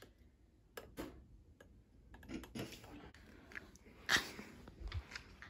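A few light sharp clicks, two close together about a second in and a louder one around four seconds in, with faint handling noises in a quiet room.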